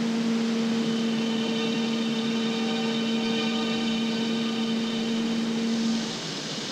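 A steady droning hum, a low tone with its overtone and fainter higher tones, over an even hiss; the hum cuts off about six seconds in, leaving the hiss.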